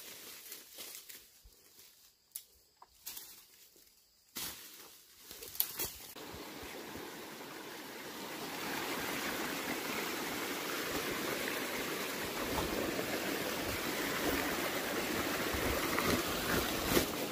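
Stream running over rocks: it comes in about six seconds in, swells, then holds steady. Before it there are scattered footsteps and rustling in undergrowth.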